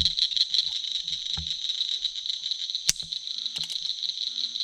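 Steady night chorus of insects, a high pulsing trill, with a few sharp clicks about three seconds in.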